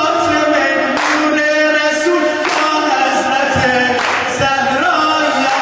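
A man singing a Shia devotional song (madahi) into a microphone, holding long wavering notes, with a few sharp beats under the voice.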